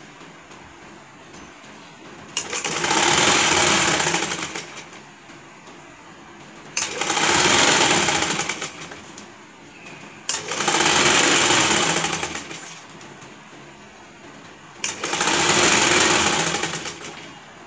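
Sewing machine running in four separate stitching runs of about two and a half seconds each, with short quiet pauses between them.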